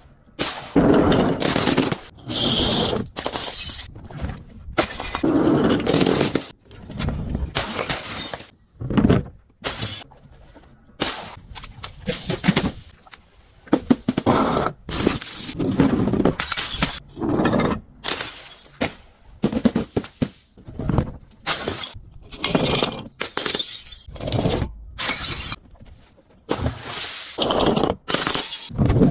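Glass breaking and crunchy objects being crushed: a long series of separate shattering, crunching bursts, about one every second or two.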